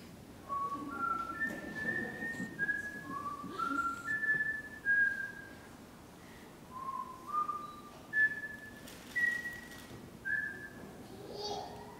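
A person whistling a slow tune in short, clear notes that step up and down, with a pause about halfway through and a rising glide near the end.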